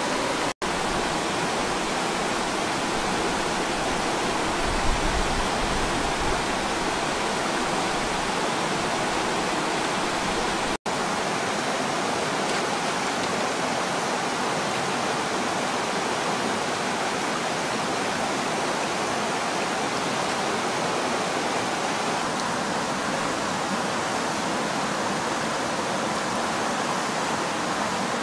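Steady rushing of a flowing stream, dropping out briefly twice.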